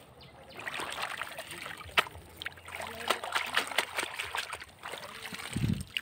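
A hand splashing and sloshing in shallow muddy water as a silicone pop-it is lifted out, with water trickling and dripping and many sharp little clicks. A dull low thump comes near the end.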